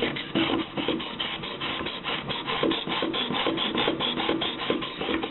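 Diamond sharpening stone rasping back and forth along the edge of a soft stainless paring knife in quick, even strokes, working to raise a burr.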